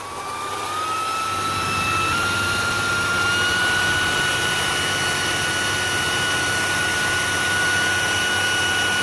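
Leaf blower spinning up and then running steadily, a rush of air with a whine that climbs in pitch over the first few seconds and then holds level.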